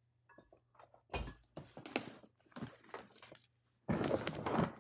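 Handling noise of a fabric Milwaukee Packout structured tool bag and its contents: scattered light clicks and clinks, then a louder rustle near the end.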